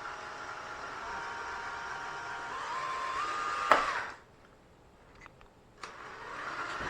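DeWalt drill with a 3/4-inch bit boring into the bottom of a Pringles can. Its motor whine steps up in pitch, then comes a sharp crack about four seconds in and the drill stops. A few faint clicks follow, and the drill runs up again near the end.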